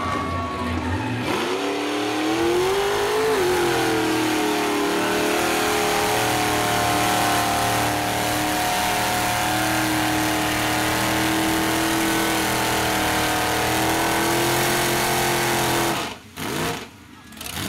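Limousine-bodied mud truck's engine held at high revs under hard throttle as it churns through the mud pit. The engine note climbs about two seconds in, holds steady and high, then drops away twice briefly near the end.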